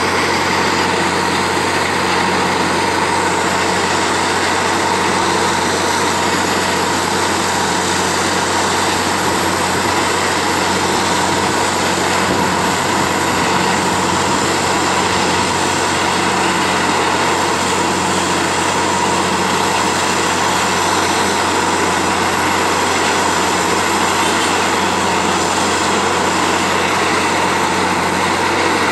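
Truck-mounted borewell drilling rig running flat out while drilling into rock: a loud, steady machine drone from its engine and air compressor, with a constant high whine over a low hum.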